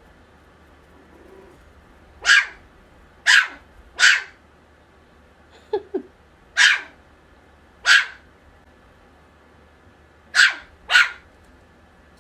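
Maltipoo puppy barking: seven sharp, high little yaps at uneven spacing, some in quick pairs, with two softer, lower yips in between. These are a young puppy's first little barks.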